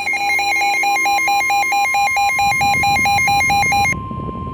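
Electronic weather-alert tones: a rapidly pulsing beep, about four to five beeps a second, that stops about four seconds in, overlapping a steady single-pitch NOAA Weather Radio warning alarm tone that starts about a second in. Together they signal the start of a severe weather warning broadcast.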